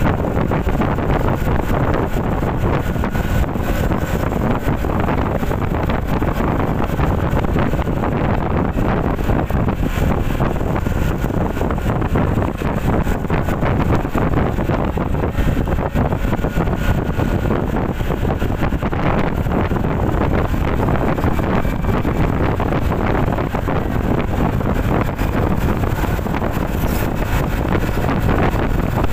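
Wind buffeting the microphone of a motor scooter being ridden at road speed, a steady rushing noise with the ride's engine and road noise mixed in beneath.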